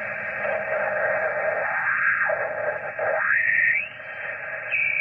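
Yaesu HF transceiver's receiver on upper sideband in the 20 m band, giving out a steady hiss of band noise while the tuning dial is turned. A garbled signal swells and fades about two seconds in, and another slides up in pitch a little after three seconds as the dial sweeps past stations.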